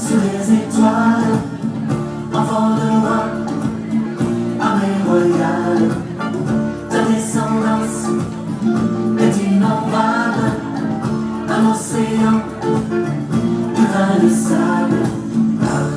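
Music with singing: a French-language Christian worship song, with voices over guitar accompaniment.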